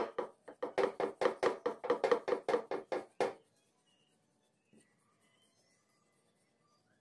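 Rolling pin working a stuffed paratha on a round rolling board, making a fast, even run of knocks, about five a second, that stops about three seconds in. After that it is almost quiet.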